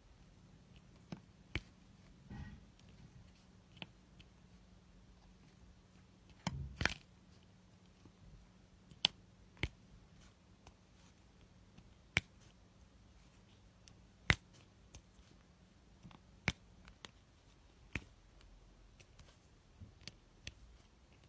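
Diamond-painting drill pen pressing round resin drills onto the canvas: sharp single clicks and taps every second or two, with a short rustle about two and a half seconds in and a louder one about seven seconds in.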